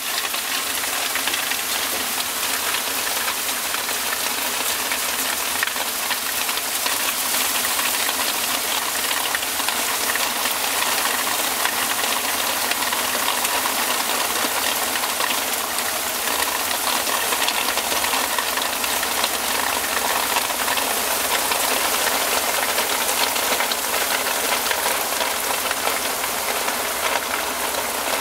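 Heavy rain pouring down: a dense, steady hiss of a downpour.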